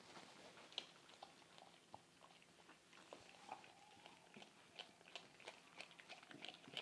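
Faint, irregular wet smacking and clicking of a mother dog licking a newborn puppy held to her mouth. The licking stimulates the puppy to urinate and pass a bowel movement.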